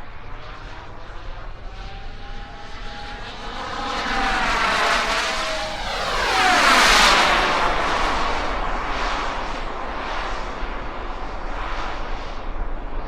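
Turbine engine of an RC model jet whining as the plane flies past. It grows louder toward the middle, peaks about seven seconds in, and its pitch drops as it goes by.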